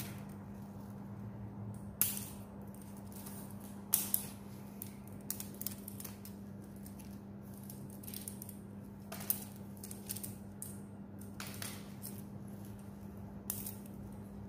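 Scattered light clicks and rattles of a yellow fiber optic patch cord being coiled and handled, its plastic connectors tapping, the sharpest about 2 and 4 seconds in. A steady low hum runs underneath.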